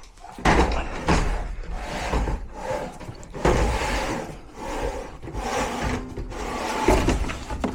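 Irregular rubbing and scraping strokes with low knocks, the sound of hand work on metal parts and fittings during an HVAC installation.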